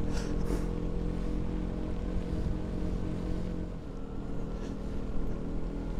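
KTM 125 Duke's single-cylinder four-stroke engine running at a steady, unchanging speed, with wind rumble on the microphone and road noise from the wet street.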